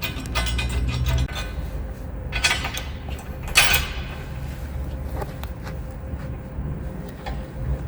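Ratchet wrench clicking for about the first second, then metal sawmill-bed parts clanking and scraping twice, with a few small knocks after.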